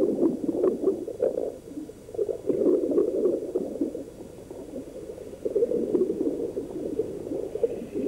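Underwater bubbling and gurgling: a continuous churning, liquid sound with small irregular pops, easing off briefly about two seconds in and again around the middle.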